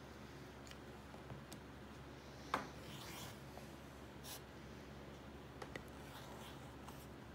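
Rotary cutter blade rolling through fabric along an acrylic quilting ruler on a cutting mat: faint scraping strokes, with a sharp click about two and a half seconds in.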